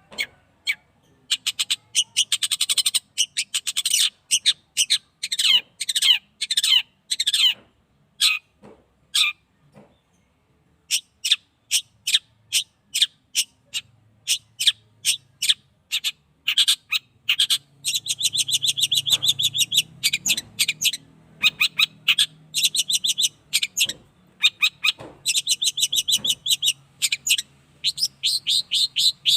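Young long-tailed shrike, about eight months old, singing in rapid chattering phrases of short sharp notes and fast trills, broken by a short pause a third of the way in.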